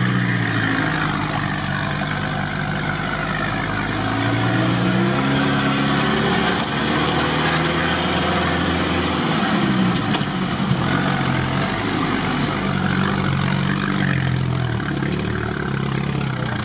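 Off-road 4x4's engine pulling under load through deep water and mud, its pitch rising and falling several times as the throttle changes, heard from inside the cabin.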